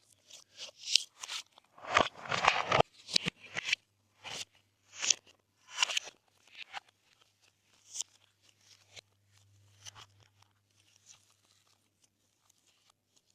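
Glossy slime being mixed, making a run of crackling, popping squishes. They are densest and loudest about two to three seconds in and thin out toward the end.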